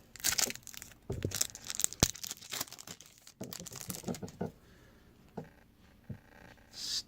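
Trading cards being handled and flipped through: the cards and their wrapper rustle and slide against each other, with a sharp click about two seconds in, then the handling gets quieter and sparser.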